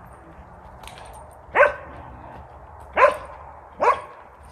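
A dog barking three times, short sharp barks, the first about a second and a half in and the last two about a second apart.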